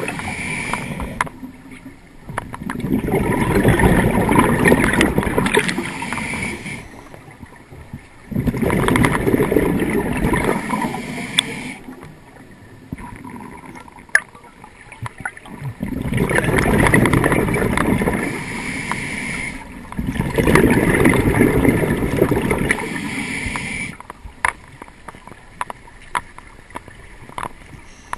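Scuba diver breathing through a regulator underwater: four long bursts of exhaled bubbles rumbling past the camera, with quieter stretches of inhaling between.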